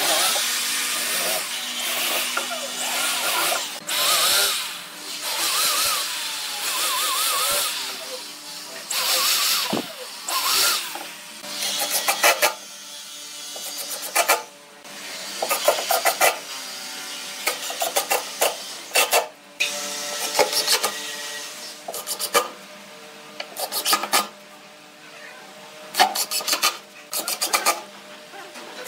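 A corded drill driving screws into pine boards, in runs of a couple of seconds each with its whine wavering up and down. About halfway through, a cordless impact driver takes over, driving screws in short rattling bursts.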